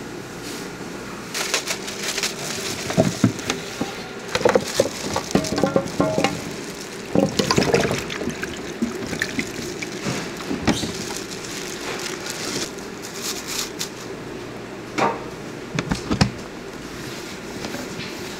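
Sauce-coated chicken feet poured from a plastic bag into a steel tray of spicy sauce: wet squelching and slapping in irregular bursts as they slide out and land, over a steady low background hum.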